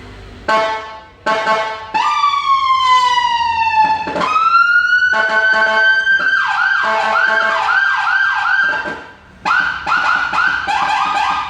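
Whelen police siren through a low-profile speaker, cycling through its tones. First come two short blasts, then a slowly falling tone, then a wail that rises and holds. A fast repeating yelp follows, stops briefly about nine seconds in, and starts again.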